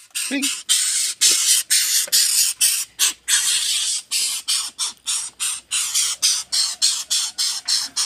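Young greater coucal (Centropus sinensis) giving a rapid, regular string of harsh hissing rasps, about three a second. It is the begging call of a hand-raised coucal chick asking for food.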